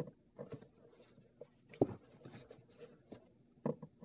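Light scratching and rustling of a plastic-gloved hand handling dishwasher wiring, with a few short clicks, the sharpest a little under two seconds in.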